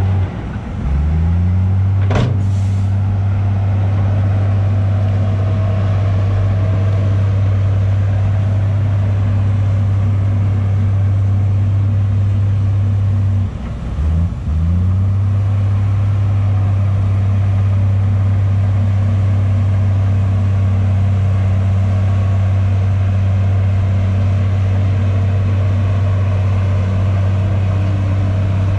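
Diesel engine of heavy earthmoving machinery running with a steady low drone. It dips briefly and revs back up just after the start and again about halfway through.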